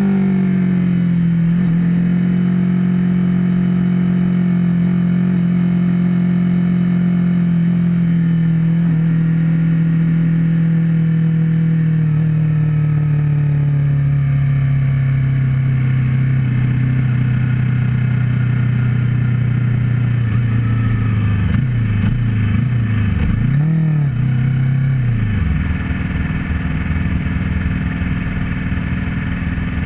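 Yamaha R25's 249 cc parallel-twin engine, stock with an AHM Z1R exhaust, running at a steady high pitch that sinks slowly. About two-thirds of the way through it is blipped up and down several times, then settles to a lower, quieter running note.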